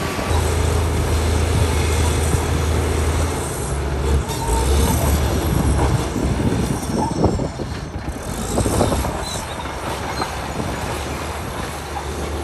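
Crawler bulldozer at work pushing stone: its diesel engine runs with a steady low hum that shifts with load, under the clank and grind of steel tracks and rock.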